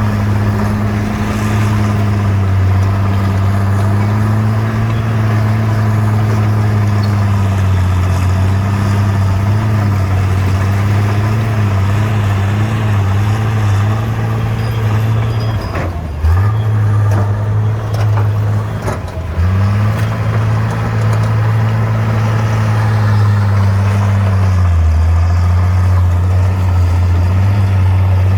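Bulldozer's diesel engine running steadily under load. About halfway through it dips briefly twice, with a few sharp knocks around the dips.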